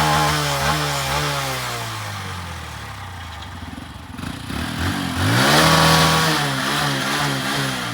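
Motorcycle engine revved in place: the revs sink away over the first few seconds, then rise sharply again about five seconds in, hold briefly, and waver before dropping near the end.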